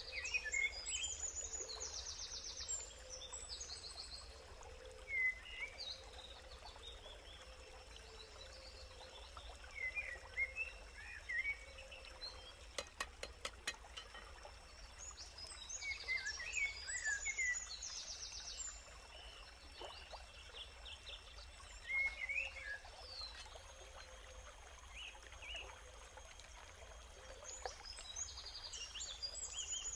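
Forest ambience: birds singing and calling at intervals over a steady hiss, with a quick run of cleaver chops on a wooden board about halfway through.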